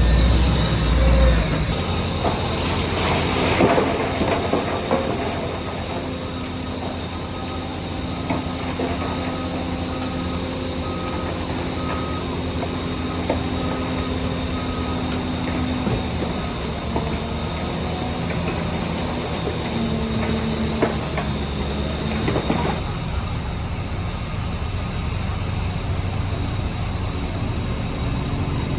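Heavy earthmoving machinery at work: a diesel engine running steadily, with hissing, squeals and scattered knocks of metal. The low engine rumble is heaviest in the first second or two, and a run of faint repeated beeps sounds in the middle.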